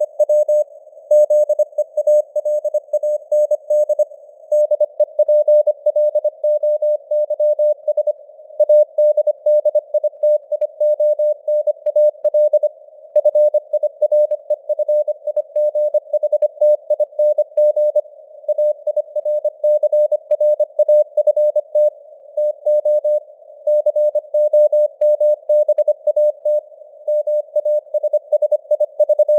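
Morse code (CW) sent at 25 words per minute as a single mid-pitched beep keyed on and off in rapid dots and dashes. It sits in a narrow hiss of simulated radio noise, and its strength rises and falls with simulated fading (QSB).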